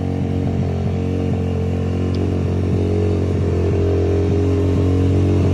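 Small single-cylinder 140cc dirt bike engine idling steadily, a little higher than normal idle, growing slightly louder.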